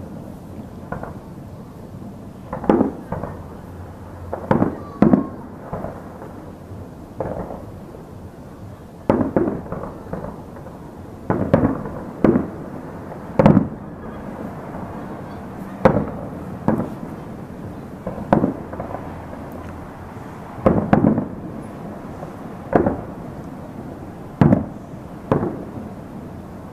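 Aerial firework shells bursting in a string of about twenty booms at uneven gaps of one to two seconds, each trailing off in an echo.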